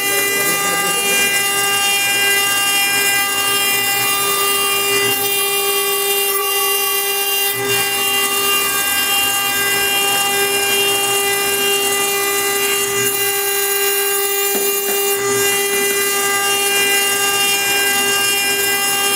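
CNC router spindle running with a steady high whine while a conical engraving bit cuts into a wet stone slab under a water-coolant spray, over a constant hiss of cutting and spray.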